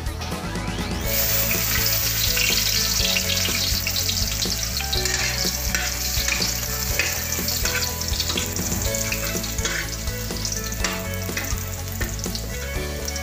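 Chopped garlic sizzling in hot oil in a steel wok, with a metal ladle scraping and tapping the pan as it is stirred. The sizzle comes up about a second in and stays steady.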